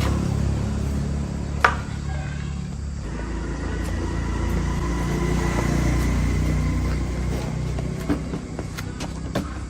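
A steady low mechanical rumble, like a motor or engine running, with a sharp click about a second and a half in and a few lighter clicks near the end.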